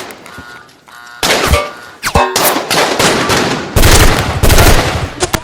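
Gunfire in an action-film firefight: a few separate shots, then rapid automatic fire from about four seconds in.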